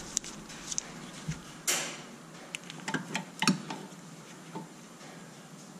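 Scattered light metallic clicks and ticks from a ratchet wrench and extension worked on a seized 12 mm ABS sensor bolt that won't budge, with a short scrape about two seconds in.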